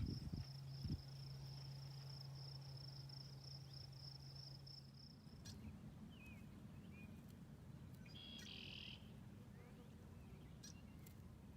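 Faint high-pitched insect trill, steady and slightly pulsing, with a low hum under it; both stop suddenly about five seconds in. After that, a few faint bird chirps.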